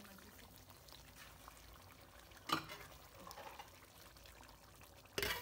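Beef curry gravy simmering faintly in a pot on the stove, with a sharp knock about halfway through and a brief louder noise just before the end.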